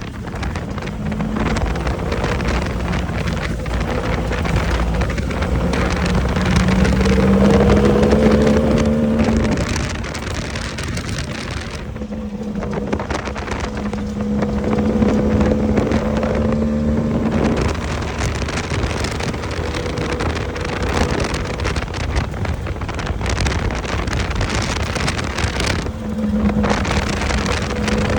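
Off-road race vehicle's engine running hard at speed; its note climbs and then drops back about three times, over a steady rough rumble and rattle from the chassis on the dirt. Heard onboard, with wind buffeting the microphone.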